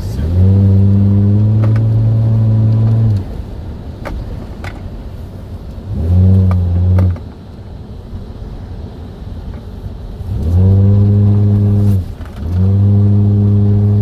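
Toyota Land Cruiser engine revved hard four times. Each time the pitch climbs quickly, holds steady, then drops away sharply as the throttle is let off. A lower steady drive rumble fills the gaps.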